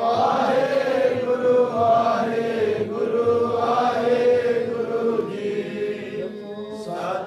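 Intro music of chanting voices over a steady drone, fading down near the end.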